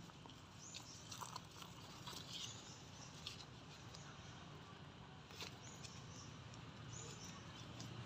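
Infant macaques giving faint, short high-pitched squeaks, several scattered through, with a few light taps.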